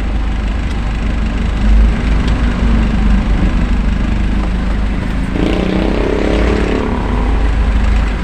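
Truck engine running steadily as the truck drives on town streets, a continuous low rumble, with a brief pitched, wavering sound over it around five to seven seconds in.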